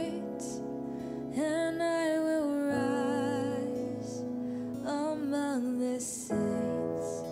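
A woman singing a slow worship song into a microphone in long held notes, over a soft, steady keyboard accompaniment.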